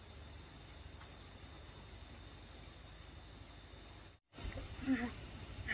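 Insects buzzing in one steady high tone over a low rumble. The sound cuts out for a moment about four seconds in, then a couple of short pitched calls are heard near the end.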